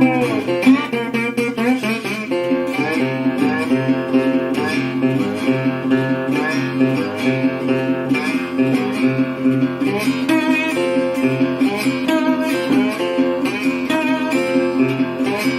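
Background music: a plucked string instrument, guitar-like, playing quick runs of notes over a steady low drone.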